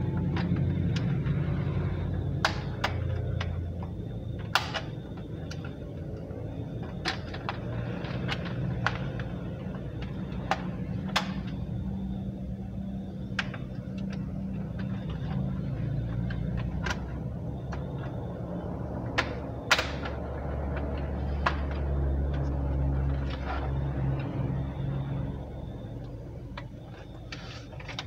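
Plastic snap clips of an Acer Z1402 laptop's case clicking and cracking one at a time, at irregular intervals, as the case halves are pried apart by hand. A steady low hum runs underneath and drops away near the end.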